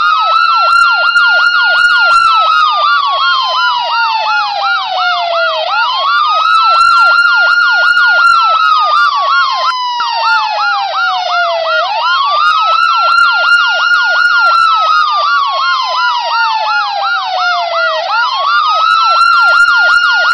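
Electronic emergency-vehicle siren sounding continuously and loud. A slow wail rises quickly and then falls over about six seconds, repeating throughout, with a fast warbling yelp of about five sweeps a second layered on top.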